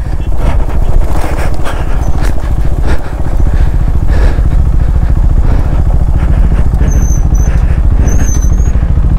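KTM 390 Adventure's single-cylinder engine running steadily at low speed while the bike is ridden off-road over gravel and grass.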